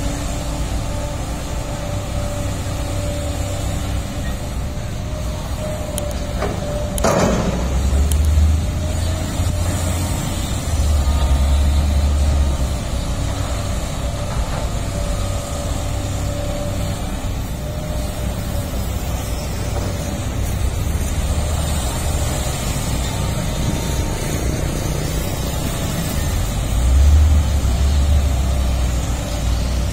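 Heavy diesel construction machinery running steadily, its low engine rumble swelling louder in several surges, with a short hiss about seven seconds in.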